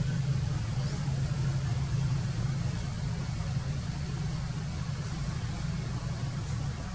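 A steady low hum, like an engine idling, that runs on unchanged.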